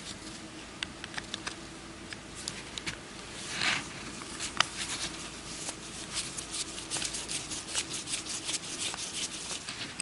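Small metal clicks and scrapes of a flat-blade screwdriver turning a tiny screw out of a Tillotson carburetor. The clicks come faster from about halfway, over a faint steady hum.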